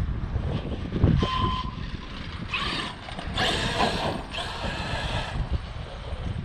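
ARRMA Outcast RC truck driven in three short bursts of throttle, its drivetrain making the usual ARRMA gear noise, over a steady low rumble.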